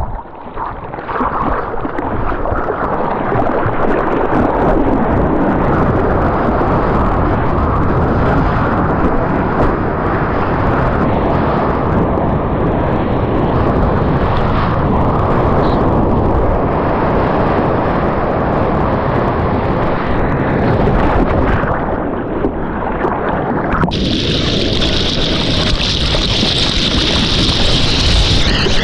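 Ocean water and wind rushing over the camera's microphone while surfing: a loud, even roar. About 24 seconds in it turns thinner and hissier.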